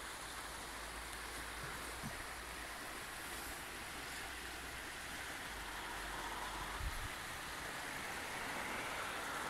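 Shallow mountain river flowing over a stony gravel bed: a steady rushing of water, growing a little louder near the end.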